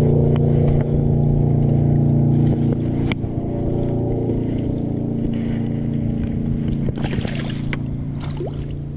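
A motorboat engine running steadily, a little quieter after about two and a half seconds, with a few light knocks and rustles.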